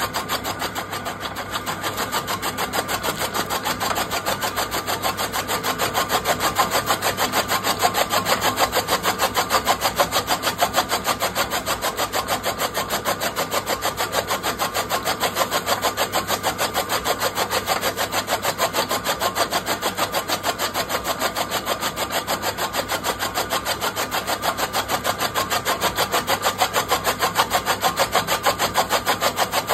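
Electric chaff cutter running steadily, its flywheel blades chopping fodder stalks as they are fed in, in a fast, even chopping rhythm over the motor's hum.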